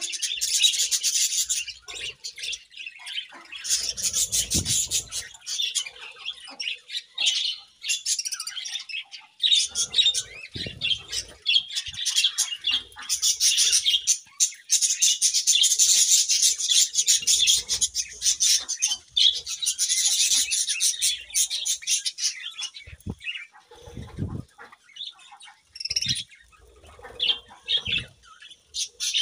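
A colony of budgerigars chirping and chattering, many birds at once, in busy spells that ease off and pick up again, with a few soft thumps of wings or feet.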